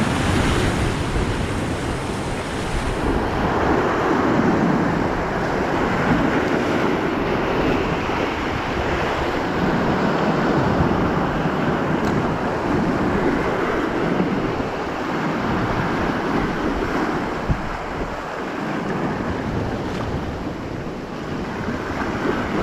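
Sea surf breaking and washing against a rocky shore, swelling and easing every several seconds, with wind buffeting the microphone. There is a single sharp click about three quarters of the way through.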